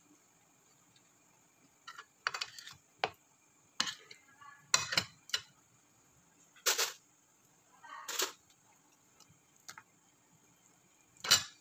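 Irregular short clicks and brief wet scrapes as a hand turns lamb pieces in soy sauce on a ceramic plate, with a spoon knocking against the plate. There are about nine of them, spread unevenly, and the sharpest comes near the end.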